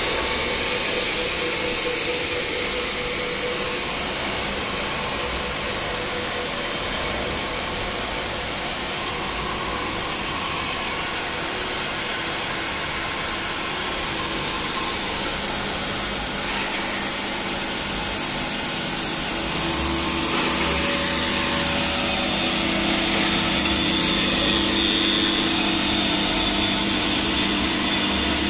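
Automatic band-saw toilet paper cutting machine running, a steady mechanical motor and saw noise that grows louder past the middle.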